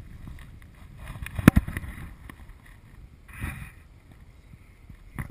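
Water and wind noise with a sharp knock about a second and a half in, and a short splash about three and a half seconds in as the hooked tarpon breaks the surface.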